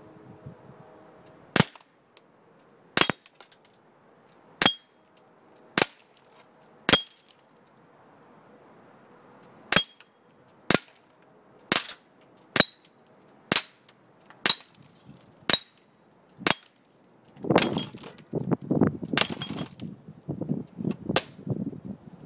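M84 non-blowback CO2 airsoft pistol firing about fifteen sharp shots, one every second or so, several followed by a short ring. Near the end a louder jumble of low rustling noise runs under the last few shots.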